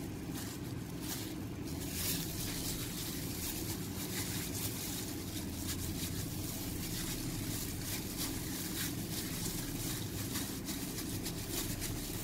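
A plastic-gloved hand rubbing dry spice mix onto raw fish pieces in a glass bowl, with soft, irregular crinkling and rustling over a steady low hum.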